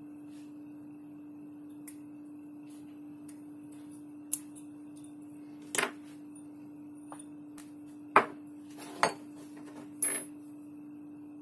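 Metal airsoft gas magazine parts and a steel pick being handled on a workbench: about five short clicks and knocks in the later part, the loudest about eight and nine seconds in, over a steady low hum.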